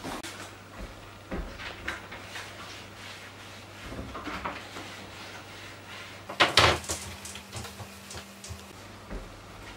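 Kitchen cleaning by hand: a cloth wiping glossy cabinet and appliance fronts and a spray bottle squirting cleaner, in short scattered scrubs and hisses, with one louder clatter about two-thirds of the way through. A low steady hum runs underneath.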